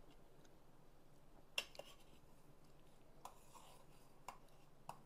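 A metal spoon clinking faintly against an enamel bowl of soup: a handful of light, separate clinks, the clearest about a second and a half in.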